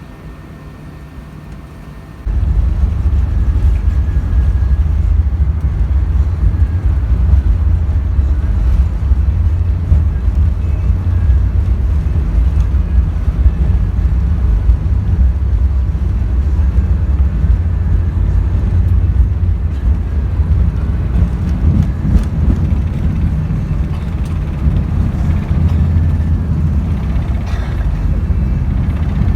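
Airbus A380-861 cabin noise: a quiet steady hum that jumps abruptly about two seconds in to a loud, steady low rumble of engines and airflow.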